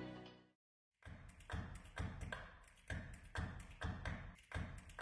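Sustained music fades out, and after a short silence a rhythmic background beat of low thumps and sharp taps starts about a second in, at roughly two beats a second.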